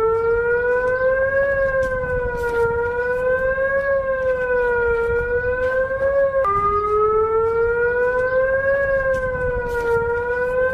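Emergency alarm siren wailing, its pitch slowly rising and falling about every two and a half seconds over a crackly hiss and rumble. About six seconds in the wail drops back down and starts over.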